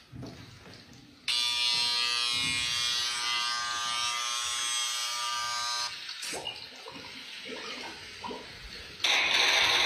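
Electric hair-clipper buzz played from a smartphone held against the head: a steady buzz that starts about a second in and cuts off about six seconds in. Near the end a loud hiss starts.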